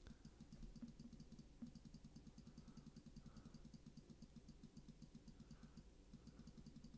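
Faint, rapid, evenly spaced clicking from a computer mouse as the margin values are stepped down, several clicks a second.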